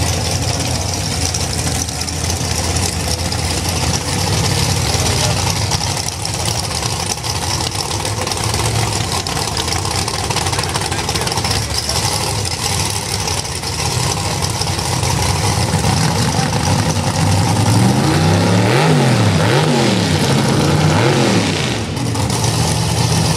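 Drag-racing car engines running at idle with a steady rumble. About eighteen seconds in, an engine is revved up and down several times, the loudest part, before settling again.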